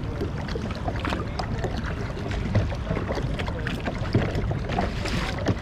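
Water sloshing and lapping against a plastic kayak hull as it is paddled through choppy water, with a few sharper splashes of the paddle blades dipping in.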